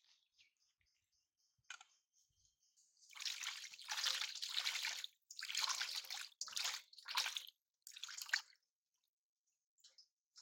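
Hands washing dried fish in a stainless steel bowl of water, splashing and sloshing in about five bursts from about three seconds in until eight and a half seconds in.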